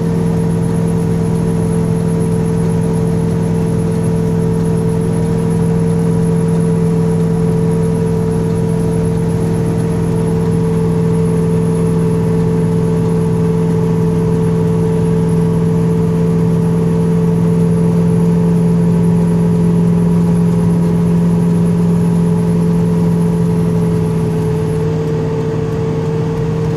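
A fan whirring steadily in a moving vehicle, with a steady low hum and a clear mid-pitched drone over road noise; a faint high whine cuts out near the end.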